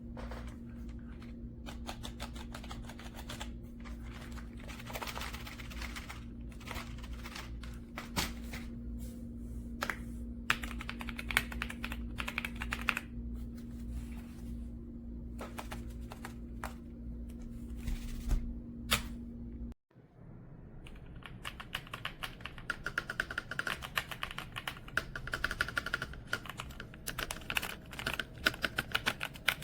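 Typing on a Royal Kludge S98 mechanical keyboard with pale green tactile switches and PBT keycaps: a fast, irregular run of key clicks. A steady low hum sits under the first two-thirds; the sound breaks off for a moment, then typing resumes sounding brighter.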